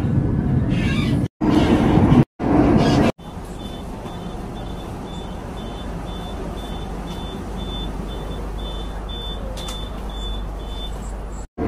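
Several short clips of steady vehicle noise joined by abrupt cuts. The longest has a low, steady rumble with a high electronic beep repeating about twice a second for most of its length.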